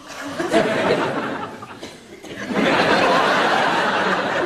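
Studio audience laughing in two waves: a burst at the start that dies down, then a bigger, sustained swell from about halfway through.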